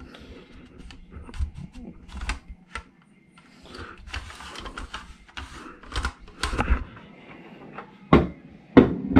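Light plastic clicks, clacks and rustling as the removed Volvo V70 dashboard cup holder unit is handled and its spring-loaded mechanism is worked, with two sharper knocks near the end.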